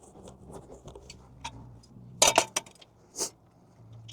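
Scattered light clicks and ticks, with a few sharper clicks about two seconds in and another a little after three seconds in.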